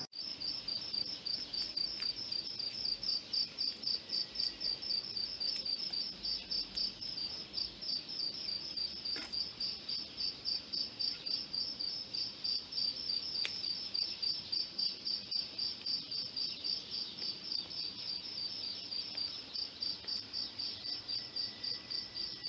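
Insects chirping: a high-pitched, evenly pulsing call that repeats several times a second and keeps a steady rhythm.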